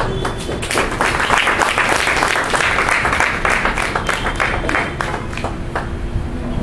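Audience applauding, a dense patter of clapping that swells about a second in and dies away near the end.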